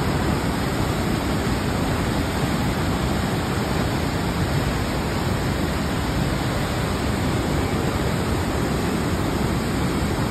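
Waterfall crashing into a plunge pool, heard close by: a dense, steady rush of white water, heaviest in the low end.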